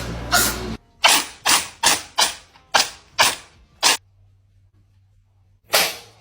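Cat sneezing in a rapid fit, about seven short sharp sneezes within three seconds, then a pause and one more sneeze near the end.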